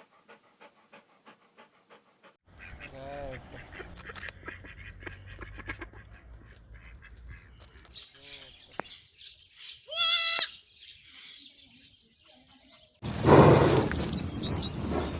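A run of short clips of different animals calling, one after another: a quick rhythmic series of breaths, then assorted pitched animal calls and chirps with one loud call about ten seconds in, then loud cow mooing starting about thirteen seconds in.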